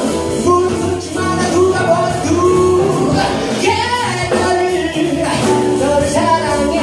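Live jazz band playing: a male vocalist singing into a microphone over grand piano, upright double bass and drum kit.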